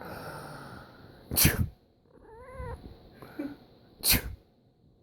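A person sneezing twice, loud and short, about a second and a half in and again near the end. Between the sneezes the cat gives a brief wavering meow of protest.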